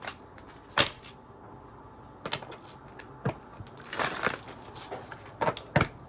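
Tarot cards being handled: a series of irregular sharp snaps and taps, with a short cluster of them about four seconds in.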